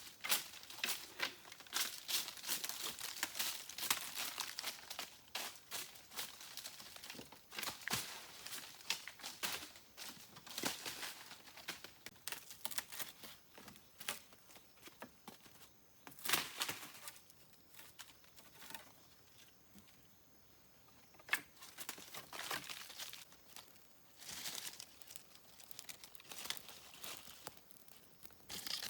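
Irregular crinkling and crackling rustle with frequent short sharp snaps, dying down for a few seconds about two-thirds of the way through before starting again.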